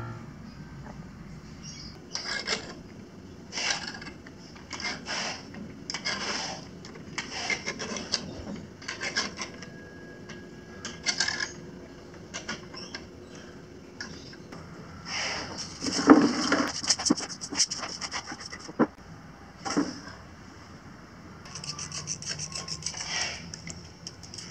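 Clothes on hangers being handled on a drying rail: repeated short rustles of fabric and scrapes of hangers, about one every second, with a louder, busier run about two thirds of the way through.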